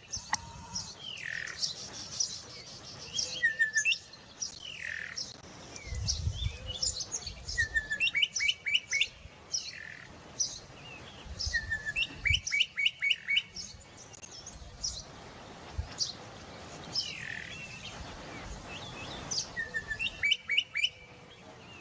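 Bokmakierie calling: loud whistled phrases repeated every few seconds. Each phrase is a quick run of four or five short ringing notes or a downward-sliding whistle.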